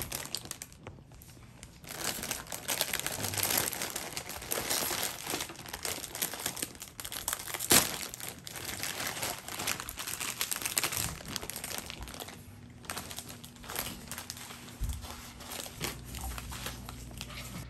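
Plastic instant-ramen packet (Buldak 2x Spicy) crinkling and tearing as it is ripped open and handled. There is one sharp crack a little before halfway through, and the rustling grows quieter in the last few seconds.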